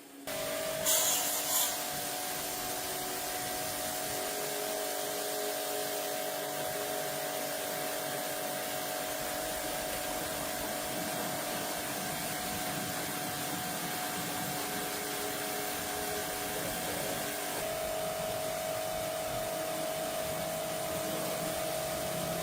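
A small motor starts and runs steadily with a strong rushing-air noise and a steady hum. A brief sharper hiss comes about a second in, and the hum steps up slightly in pitch near the end.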